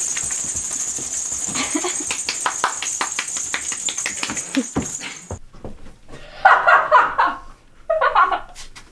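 Metal coins on a belly-dance hip scarf jingling as it is shaken: a high, rapid jangle for about five seconds that stops suddenly. Then two loud, short cries, the second briefer.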